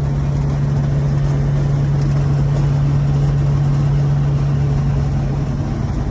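Vehicle engine running at a steady speed, a constant low drone with an even hum and no change in pitch.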